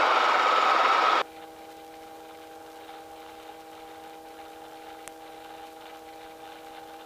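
Helicopter cockpit noise heard through the headset intercom: a loud steady rush of rotor and engine noise that cuts off abruptly about a second in, leaving a faint steady hum of several tones.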